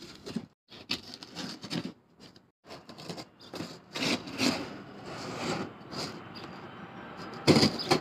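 Hooked-blade knife slicing and tearing through a cardboard shipping box in short, irregular scraping strokes. The sound breaks off suddenly a few times, and there are two louder bursts near the end.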